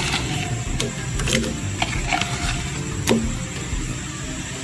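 Dried anchovies being tipped by hand from a bowl into a pot of water: scattered light clicks and rustles, over a steady low hum.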